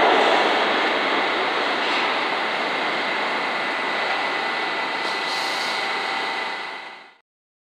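R179 subway train pulling out and running away down the tunnel: steady running noise with a thin high whine, easing off as it recedes, then fading out quickly about seven seconds in.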